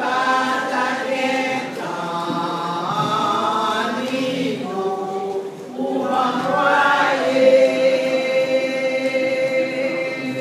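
A women's church choir singing a hymn together, with one long held note through most of the second half.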